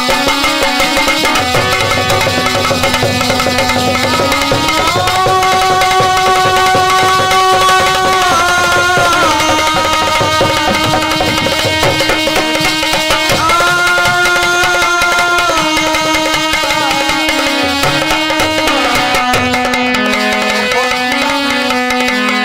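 Instrumental folk interlude: a harmonium plays a sustained melody that steps between held notes, over a fast, steady hand-drum rhythm with small brass hand cymbals.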